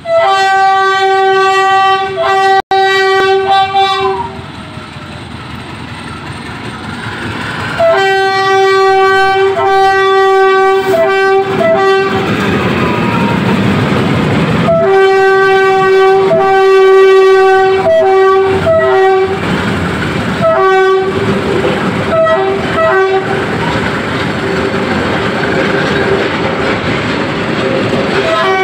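Philippine National Railways diesel locomotive DEL 918 sounding its one-note horn in groups of blasts, a long broken one at the start, then several shorter toots. Between and under the blasts, the locomotive and its train of flatcars roll past loudly, the wheels clattering on the rails.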